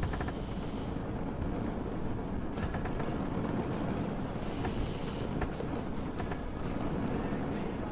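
Steady rain falling, with a constant low rumble beneath it and scattered small drip taps.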